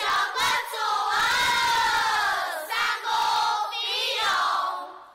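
A group of women's voices chanting in unison, in drawn-out phrases about a second long whose pitch glides up and down, with short breaks between them.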